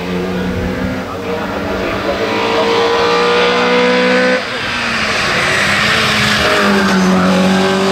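Opel Kadett C City race car's eight-valve four-cylinder engine accelerating hard uphill, revs climbing. The note breaks off sharply about four and a half seconds in, then climbs again as the car comes close, with rising road and tyre noise.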